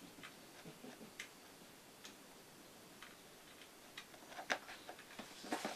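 Faint clicks and taps of a USB cable plug being fitted into a small stick-shaped battery pack and handled. The clicks are sparse at first and come closer together and a little louder near the end.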